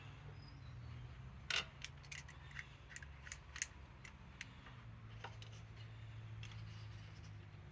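Scattered light metallic clicks and taps of hand tools being handled and fitted, loudest about a second and a half in, over a low steady hum.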